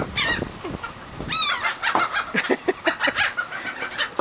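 A flock of seagulls calling: repeated harsh, squealing calls. Two loud, drawn-out calls fall in pitch, one right at the start and one about a second and a half in, followed by a quick run of shorter calls.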